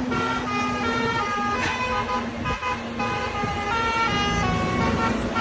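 Tour bus's basuri 'telolet' multi-tone horn playing a melody, jumping quickly from note to note, over a low rumble from the bus.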